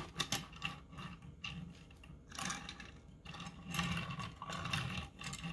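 Diecast toy cars being set down and shuffled on a plastic display turntable: a sharp click as one lands, then stretches of small rattling clicks and scraping as the metal cars and their wheels move across the surface.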